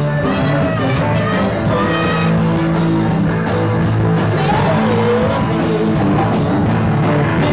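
A live rock band plays at full volume: drum kit, electric guitar and bass, with a man singing into a microphone over them.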